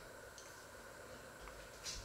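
Quiet kitchen room tone with a faint steady hum, and one brief light click near the end.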